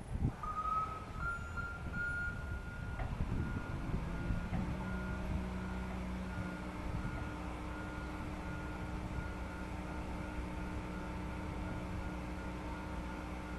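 Warning beeper on the hydraulic yacht-transport frames sounding a steady run of short beeps. About four and a half seconds in, a low motor hum starts under it as the transport machinery runs.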